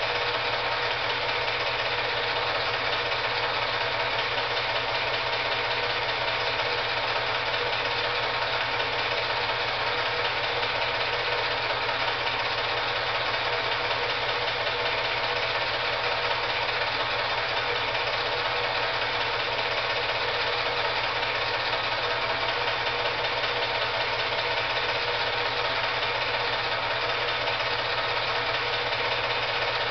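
Film projector running: a steady, even mechanical whir and hum that does not change.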